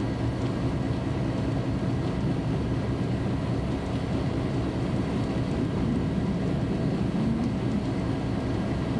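Steady low drone of a standing NJ Transit Arrow electric multiple-unit rail car, its onboard equipment running, with a few faint steady hums in it.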